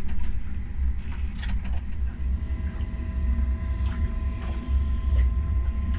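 Chinese-made 5 kW diesel air heater running as it works up to full power: a steady low rumble, with a fan whine coming in about two seconds in.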